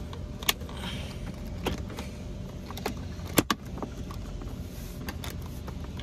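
Plastic center console trim panel of a Hyundai Equus being pressed down into the console: a few sharp clicks and light creaks as its clips snap into place, the loudest about three and a half seconds in, over a low steady hum.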